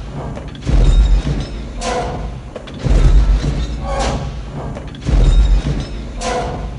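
Star Wars AT-AT walker walking sound effect: a deep booming footfall about every two seconds, each followed about a second later by a short mechanical whine and hiss from the leg joints. Three footfalls fall in these few seconds.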